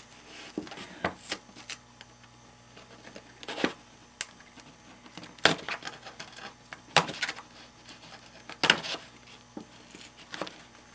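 Irregular light clicks, ticks and scratchy rustles of paper being peeled off the ties of a hand-laid N scale turnout, with a few sharper clicks spaced a second or two apart.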